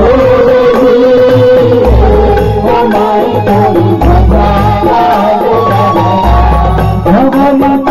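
Live Indian devotional music: a dholak barrel drum keeping the rhythm under an electronic keyboard melody, with a deep bass beat about every two seconds.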